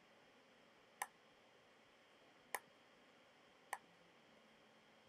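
Three separate sharp clicks of a computer mouse button, spaced a second or so apart, over faint room tone.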